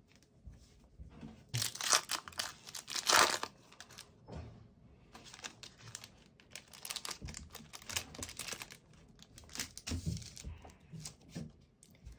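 Foil wrapper of a Match Attax trading-card pack being torn open, with two loud rips about two and three seconds in, then a run of crinkling as the foil is handled and pulled apart.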